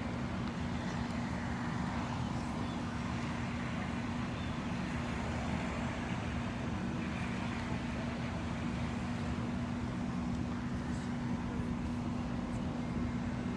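Large truck engine running steadily at a constant speed, a steady unchanging hum over a wash of outdoor noise.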